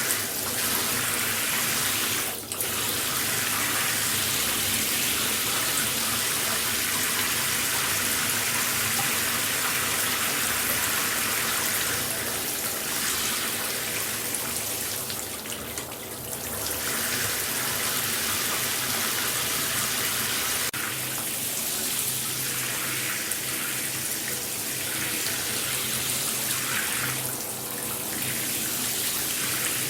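Shower running, water spraying and splashing in a steady rush, thinning briefly a few times.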